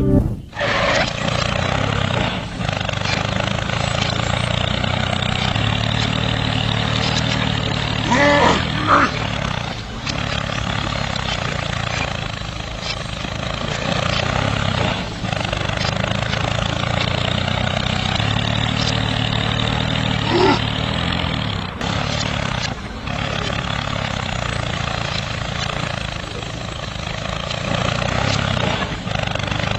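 Mini model tractor running steadily as it drags a cultivator through sand, a continuous motor hum with a rushing scrape, briefly louder about eight seconds in and again about twenty seconds in.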